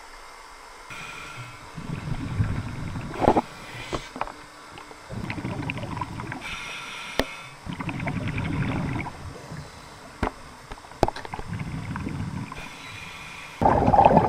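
Underwater sound of bubbling and rushing water in low bursts every few seconds, with fainter hissing between them, a few sharp clicks, and a louder burst near the end.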